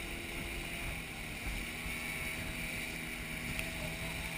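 Towing motorboat's engine running steadily with a low hum, over the rush of water and spray beneath a towed inflatable banana boat.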